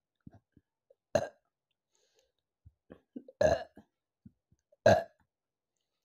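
A woman burping three times, about a second in, around the middle and near five seconds in, the middle burp the longest, with faint small clicks between. The burps are gas brought up from a carbonated apple drink.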